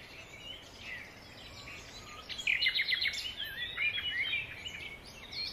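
Wild birds chirping and singing over faint outdoor background noise, sparse at first and then a busy run of quick chirps and trills from about two seconds in.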